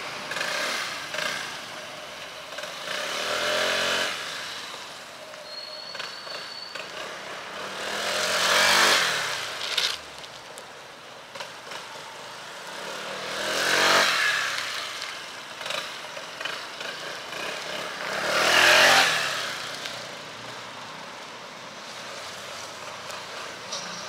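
Honda SH150 scooter's single-cylinder four-stroke engine and exhaust going past close by again and again, the pitch and level rising as it approaches and dropping away after. It passes loudest three times, about five seconds apart, with a weaker pass near the start.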